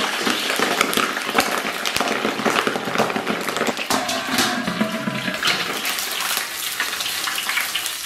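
Chicken feet deep-frying in a wok of hot oil: continuous sizzling, thick with small crackles and pops.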